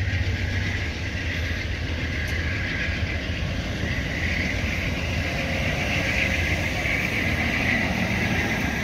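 Amtrak Amfleet passenger coaches rolling past close by: a steady rumble of steel wheels on the rails with a hiss above it.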